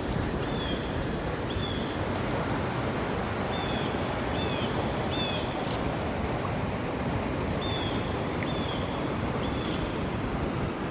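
Steady rushing noise of wind and moving water, with a bird's short high chirps, each dropping slightly in pitch, repeated about ten times at uneven gaps, some in quick pairs.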